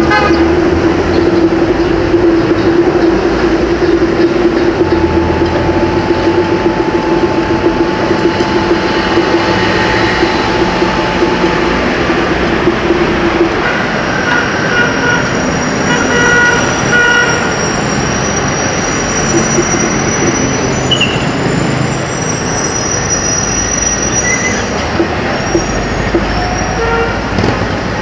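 Busy city street traffic: a steady mix of engines and tyres heard while riding along in it. A long steady hum runs through the first half, and thin high squeals come and go in the second half.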